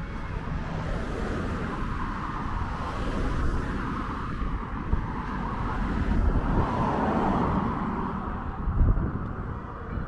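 Cars passing on the road alongside, with tyre and engine noise swelling to a peak about six to seven seconds in. Gusty wind rumbles on the microphone, and there is a brief low thump near the end.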